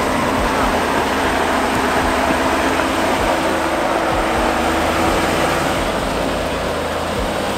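A lifted Jeep Wrangler Rubicon 392's V8 running steadily at low revs as it crawls up a rocky dirt trail, under a steady rushing noise.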